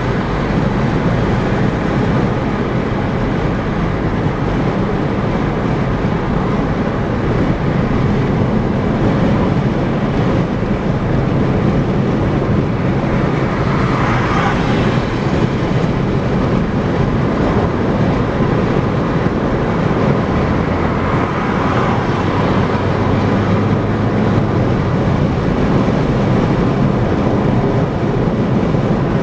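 Car driving at highway speed: steady tyre and wind noise, with a brief rise in higher hiss about halfway through.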